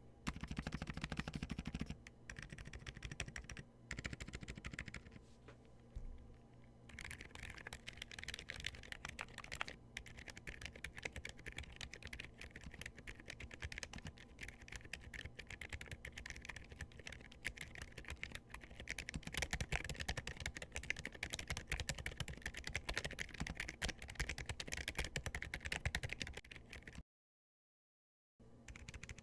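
Fast typing on a mechanical keyboard fitted with Gamakay Phoenix silent linear switches, whose silicone O-rings cushion the bottom-out: a quiet, dense patter of keystrokes. It stops abruptly for about a second near the end, then resumes.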